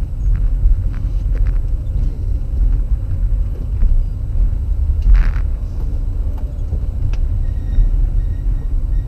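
Low, steady rumble of a car's engine and road noise heard inside the cabin, with a few faint ticks and one short noise about five seconds in.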